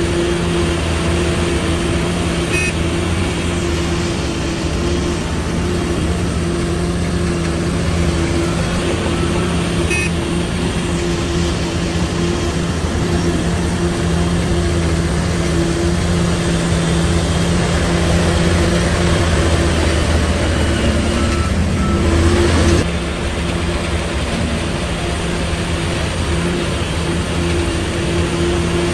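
Heavy diesel construction machinery running steadily with a low engine drone. About three quarters of the way through, part of the noise cuts off suddenly and the sound becomes a little quieter.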